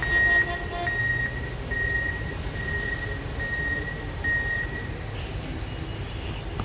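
A rail maintenance-of-way track machine on the move: a short horn toot in the first second, then a high-pitched beeping, about one beep every 0.7 s, for about five seconds over a low engine rumble.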